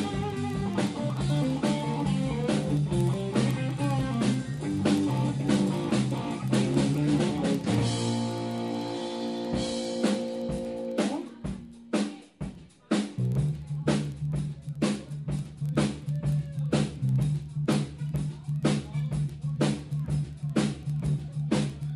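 A rock band playing electric guitar, bass and drums. About eight seconds in the band holds a long chord; the music drops out briefly near the middle, then drums and bass come back in with a steady beat.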